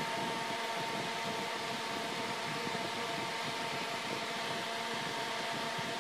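Steady whirring noise of a room fan running, with a faint constant hum.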